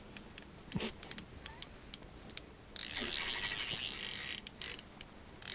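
Spinning reel being cranked to bring up a hooked fish through the ice: a few light clicks at first, then from about three seconds in a steady whir of the reel's gears, stopping shortly before the end.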